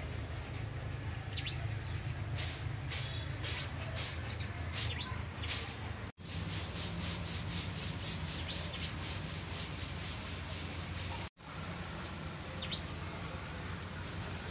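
Birds chirping in short calls over a steady low hum, with a rhythmic rasping at about four strokes a second through the middle stretch.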